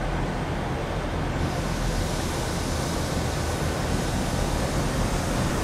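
Class 165 diesel multiple unit pulling slowly into the platform: a steady diesel engine note under the noise of the train on the rails, with a hiss that grows about a second in.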